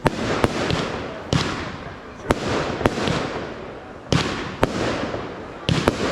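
Aerial fireworks display: about nine sharp shell bursts at uneven intervals, sometimes two within half a second, each echoing out into a continuous noisy wash between the bangs.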